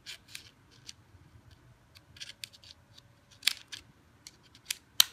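Irregular sharp clicks and light scrapes of small hard objects being handled, about a dozen over five seconds, with the loudest clicks about three and a half seconds in and near the end.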